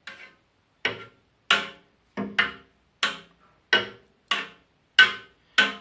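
A knife knocking against the rim of a metal cheese pot as it cuts through the set milk curd for brynza: about ten sharp knocks, one roughly every two-thirds of a second, each with a brief ring.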